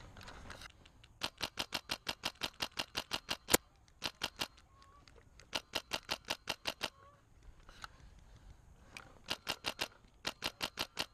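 Airsoft gun firing rapid strings of sharp shots, about seven a second, in three bursts with pauses between. One much louder crack comes about three and a half seconds in.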